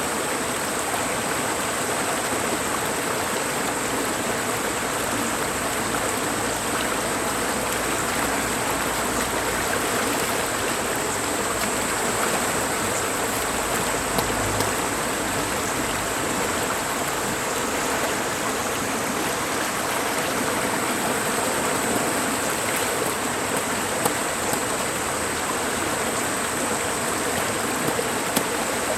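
Mountain valley stream rushing steadily over rocks, with rain falling and a few light drop ticks.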